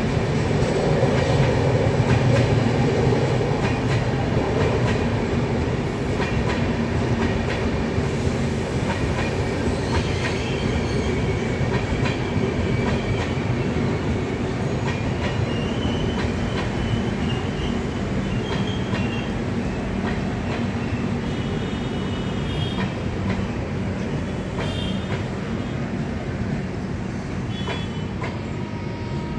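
Indian Railways passenger coaches running past on the track, a steady rail rumble with wheels clattering over the rail joints. It eases off slightly towards the end.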